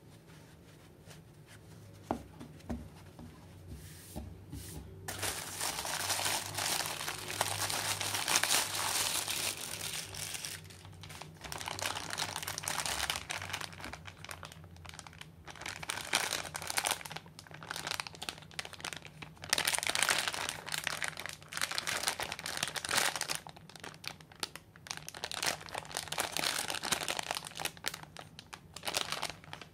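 Crinkly plastic bag of a shower sponge being handled and squeezed in the hands, crinkling on and off. It starts about five seconds in, after a quieter stretch.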